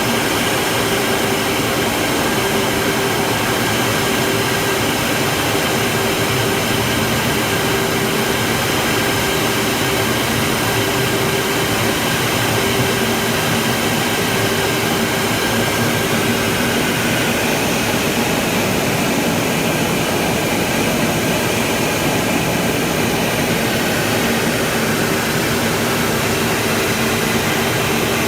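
Jet aircraft in flight: a steady, unchanging rush of engine and airflow noise with a few constant hums running through it.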